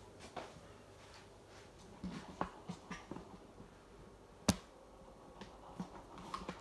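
Handling noise: scattered light taps and clicks, a few close together about two seconds in and one sharp click about four and a half seconds in.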